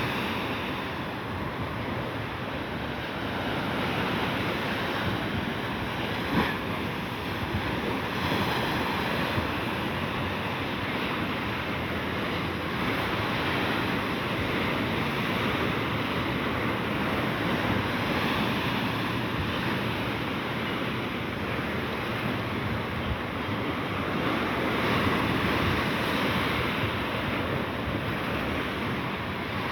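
Sea waves breaking and washing ashore in a steady surge that swells and eases, with wind buffeting the microphone. A single brief knock sounds about six seconds in.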